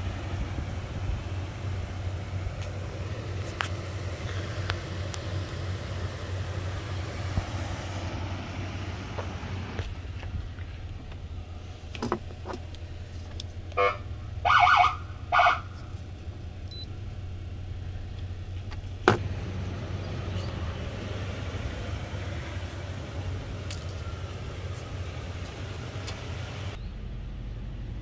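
Pickup truck idling with a steady low hum. About halfway through, a few short, loud blasts from a Feniex Typhoon siren through its 100 W speaker, tapped from the handheld controller.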